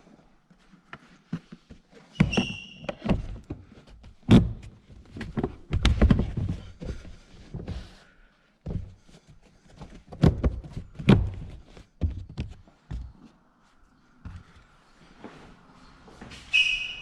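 Irregular knocks and clunks of hands and tools working on car interior trim, with a short ringing metallic clink about two seconds in and another near the end.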